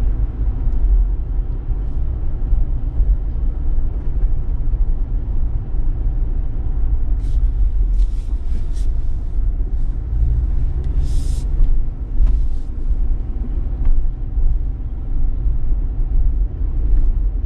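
Car driving slowly, heard from inside the cabin: a steady low rumble of engine and road noise. Short hissing sounds come twice, about eight and eleven seconds in.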